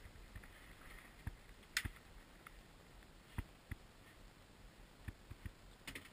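Scattered sharp clicks and taps, irregularly spaced, with the loudest a little under two seconds in.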